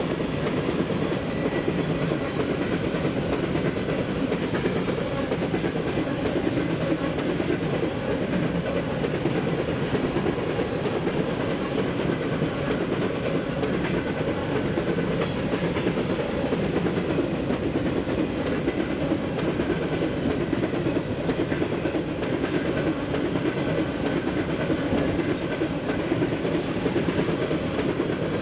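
Cars of an empty grain train rolling past at steady speed, with a continuous rumble and clickety-clack of wheels on the rails.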